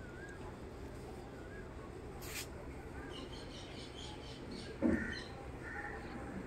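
Small birds chirping and twittering now and then over a steady low background hum, with a short rustle about two seconds in and a dull thump about five seconds in.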